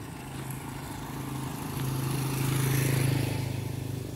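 A road vehicle's engine passing by, growing louder to a peak about three seconds in, then easing off.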